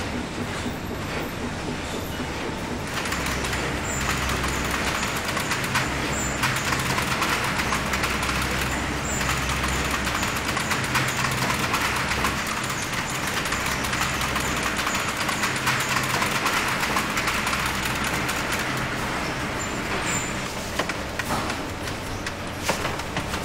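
Steady din of meat-packing plant machinery: a continuous mechanical hum with a hiss over it, somewhat louder through the middle, with a few faint clicks.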